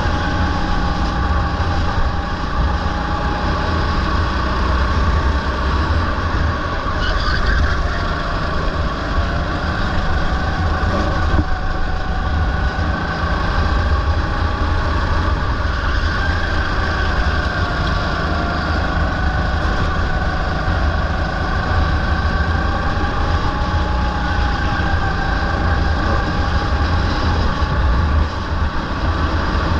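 Rental go-kart engine running at racing speed, its pitch slowly rising and falling through the corners, with a steady low rumble of wind on the onboard microphone.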